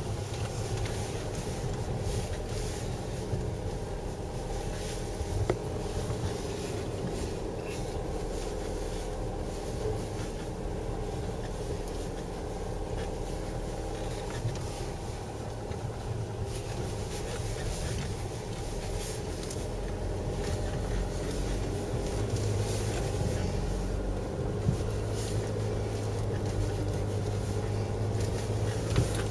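Land Rover Freelander 2 heard from inside the cabin, driving slowly over a rutted, muddy forest track: a steady engine drone with tyre and suspension noise and a few knocks over the ruts. The low drone grows stronger in the last third.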